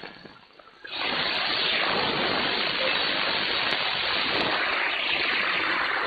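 Malachite DSP SDR receiver giving steady band noise on 160 m with no station audible; the hiss starts abruptly about a second in. The noise is put down to interference from lots of Chinese lamps.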